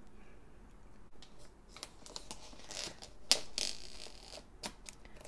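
Scissors cutting open the packaging of a cardboard toy box: a run of short snips and rustles, with a longer cut lasting about a second around three seconds in.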